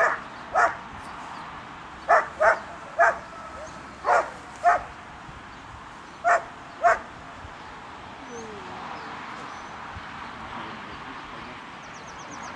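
Dog barking at the protection helper: about nine short, sharp barks, mostly in pairs, over the first seven seconds, then the barking stops.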